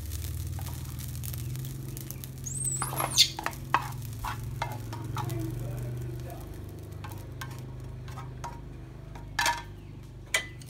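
Plastic spatula scraping and tapping fried rice out of a hot metal frying pan, with scattered sharp clicks against the pan, over a steady low hum. A brief high chirp about three seconds in.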